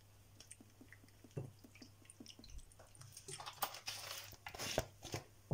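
Vinegar poured from a plastic bottle into a bowl of sliced vegetables, heard as faint, irregular small wet clicks and ticks, followed in the second half by a cluster of louder scuffs and knocks from handling the bottle and bowl.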